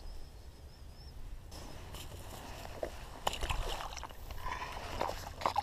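Faint sloshing and splashing of water at the river's edge, with scattered rustles and clicks of dry bank grass and fishing gear being handled, busier in the second half.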